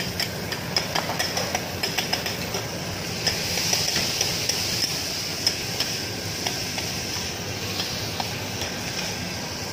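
Metal utensils tapping and clinking against bowls and plates, quick clicks densest in the first few seconds, over a steady hiss and low hum.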